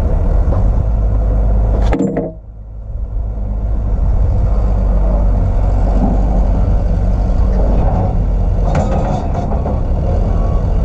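New Holland B95 backhoe's diesel engine running steadily. About two seconds in there is a sharp click, then the sound drops off briefly and builds back up. Near the end the reversing alarm starts beeping.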